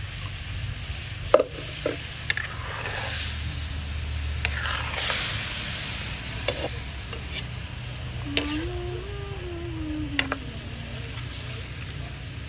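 Tilapia pieces sizzling and simmering in their liquid in a wok, while a metal spoon scrapes and clinks against the pan, spooning the broth over the fish. A few sharp knocks of the spoon stand out, the loudest about a second and a half in.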